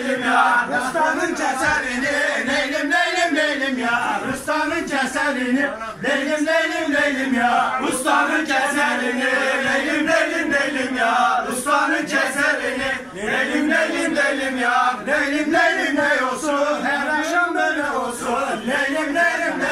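A group of men's voices singing a folk song together in unison, steady and without pause.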